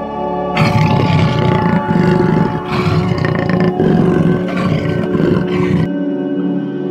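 Jaguar roaring in a run of rough, hoarse roars that start about half a second in and stop near the end, over steady ambient music.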